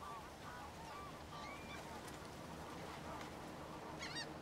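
Faint repeated animal calls, short honking notes over a low steady background, with a higher, brighter call near the end.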